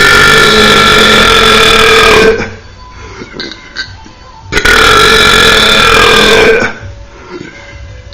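A person belching deliberately and loudly, twice: two long belches of about two seconds each, held at a steady pitch and sagging slightly in pitch as each ends, about two seconds apart.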